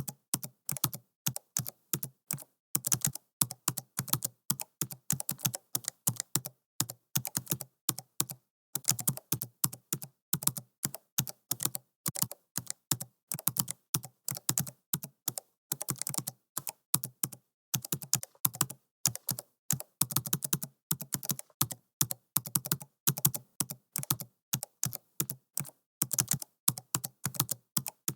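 Computer keyboard typed slowly: separate key clicks, a few a second, in short runs with brief pauses between them.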